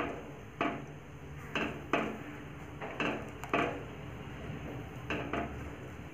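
A flat wooden spatula knocking and scraping against the sides of a metal pot while stirring wheat semolina cooking in milk. There are about eight sharp knocks at uneven intervals.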